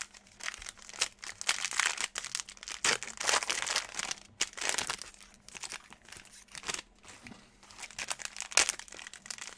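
Plastic trading-card pack wrappers crinkling and tearing as packs are opened, with cards being handled; irregular rustles and sharp crackles throughout.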